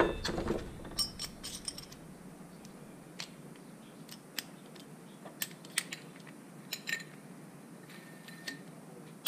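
Steel hole saws and an arbor being handled in a plastic kit case: scattered light metallic clicks and clinks, a few of them ringing briefly, as the saws are picked out and one is fitted onto the arbor.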